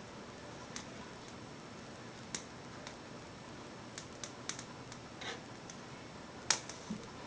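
Scattered light clicks and taps from a cat at a bathroom door, over a steady hiss, with the sharpest tap about six and a half seconds in.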